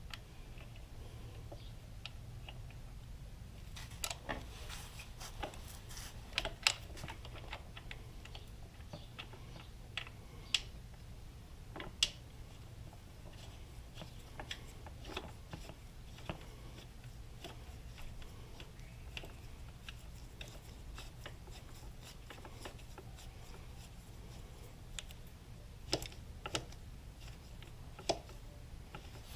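Hand tools working on metal motorcycle parts: scattered, irregular clicks and taps of wrenches on bolts, with a few sharper knocks, over a low steady hum.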